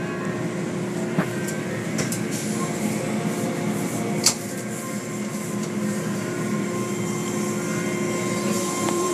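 Automatic tunnel car wash heard from inside the car: soft-cloth curtains and brushes slapping and scrubbing over the soapy car under spraying water, over the machinery's steady hum. A couple of sharp knocks, about a second in and again about four seconds in.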